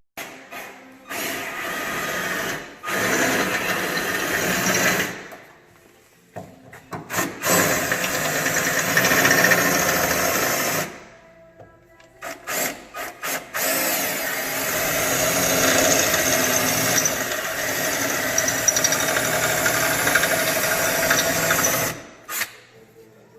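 Cordless drill boring out the spot welds that hold a steel engine-mount bracket to a car's chassis, running in about five runs of a few seconds each with short pauses between them, the longest about eight seconds.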